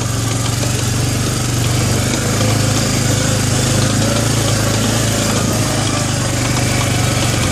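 Arctic Cat 400 4x4 ATV's single-cylinder four-stroke engine running steadily as the quad crawls along in low range.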